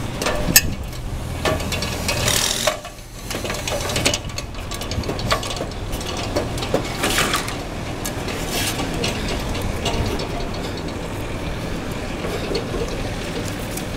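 A person climbing a ladder onto a metal roof: irregular knocks and clanks of feet and hands on the rungs and metal, over a steady low hum.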